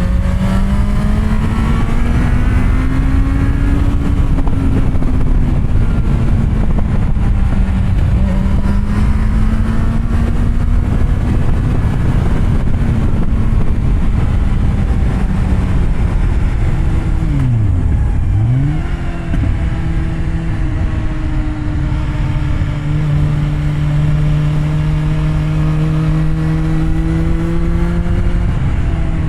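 Kawasaki Z750R's inline-four engine pulling through bends on an SC Project exhaust with its dB killer fitted, the revs rising and falling gently. About two-thirds of the way through the revs drop sharply and come straight back up, then hold at a steadier, lower note.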